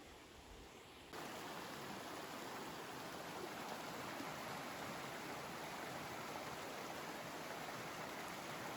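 Steady rush of flowing water, such as a mountain stream or waterfall, coming in abruptly at a higher level about a second in and holding even.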